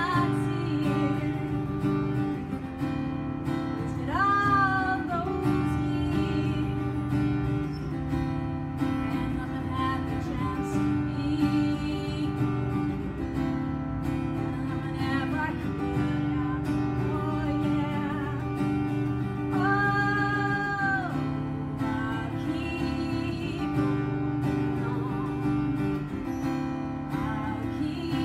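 Live acoustic guitars strumming a song together, with a singing voice holding a few long notes, one about four seconds in and another near twenty seconds.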